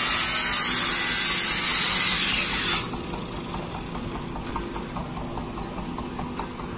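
A Chinese-made boat engine running steadily at idle with a strong hiss over it, running smoothly. It is loud for about the first three seconds, then much quieter.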